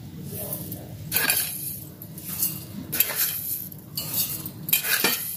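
Granulated sugar poured into a stainless steel bowl in several short bursts, the grains hissing onto the steel, with light clinks against the bowl.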